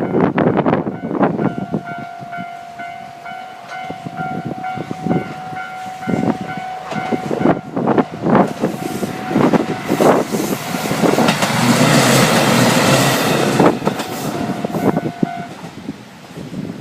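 Railway level-crossing warning bell ringing steadily while a diesel train passes over the crossing, its wheels clattering loudest in the middle. The bell stops near the end, after the train has cleared.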